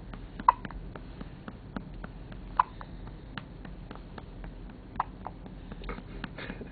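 Four-day-old newborn hiccuping: three sharp hiccups roughly two to two and a half seconds apart.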